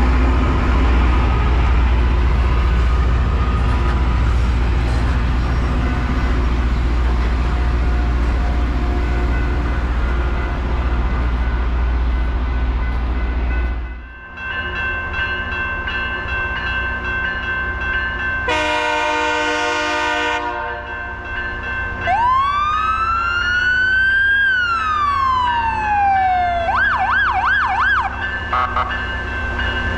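LORAM rail grinder passing with a deep, steady rumble that stops suddenly about halfway through. A level-crossing bell then rings steadily, the approaching grinder sounds one horn blast of about two seconds, and an electronic siren wails up and down before switching to rapid yelps near the end.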